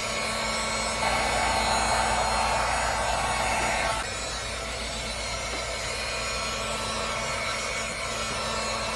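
Steady machine noise with a constant hum, louder for about three seconds starting about a second in.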